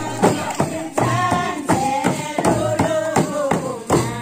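Drums beating a steady, quick rhythm under group singing.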